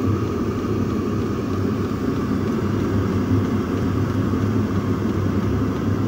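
Chinese diesel parking heater running steadily, its blower fan turned down to a lower speed because the temperature sensor reads warmer than the set point, so the heater is cycling down. A steady hum with a thin, high whine above it.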